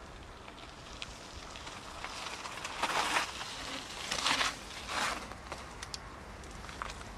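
Mountain-bike tyres rolling over rough, loose ground, with a steady crunching rustle, scattered small clicks and rattles, and three louder surges about three, four and five seconds in.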